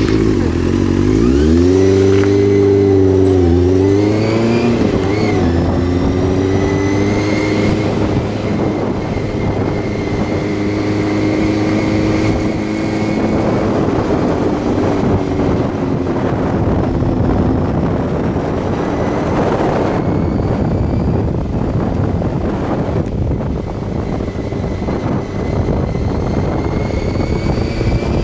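Motorcycle engine pulling away and revving up through the first gears, its pitch dropping briefly at each shift about three and five seconds in. It then runs steadily at a moderate speed, with rushing wind growing over it in the second half.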